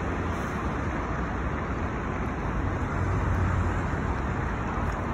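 Steady, unbroken rushing noise of a rain-swollen river in flood, blended with the rumble of road traffic.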